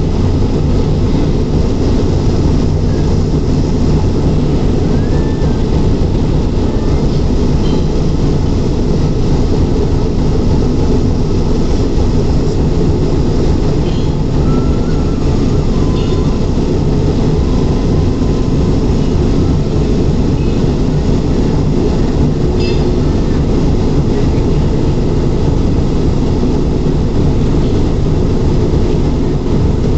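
Sri Lanka Railways Class M4 Canadian-built diesel locomotive running steadily under way, heard from the front of the engine: a constant loud engine drone mixed with wheel and rail noise. Two faint short squeals come through, one about five seconds in and one about halfway.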